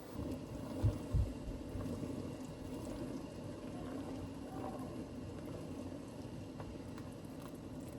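Cornstarch-thickened gravy simmering in a pot: a steady low bubbling, with two dull low thumps about a second in.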